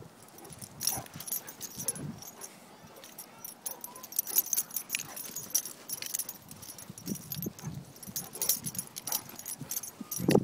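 Great Dane's metal collar tags jingling in quick, irregular clinks as the dog moves about close by, starting about a second in.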